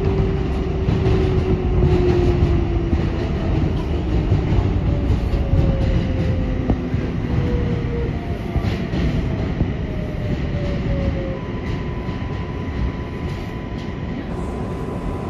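R188 subway train slowing into a station, heard from the cab: a steady rumble of wheels on the rails, with the traction motors' whine falling in pitch in several steps as it brakes. A steady high tone joins in the last few seconds.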